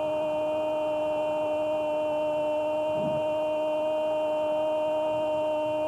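A steady, unbroken tone with overtones, held at one pitch.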